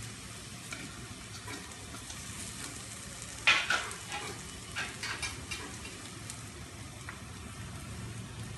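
Cluster beans frying in a stainless steel pan: a steady sizzle, with a metal spatula scraping and clinking against the pan a few times, loudest about three and a half seconds in.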